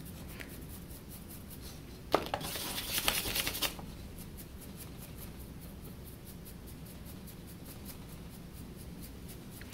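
A paintbrush scrubbing paint onto a small carved wooden figure: a click about two seconds in, then a scratchy rustle of bristles on wood lasting about a second and a half, over a low steady room hum.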